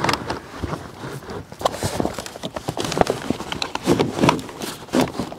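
Old convertible top fabric and its retaining edge being yanked and pried out of the body channel by hand: a string of irregular knocks and clicks with rustling.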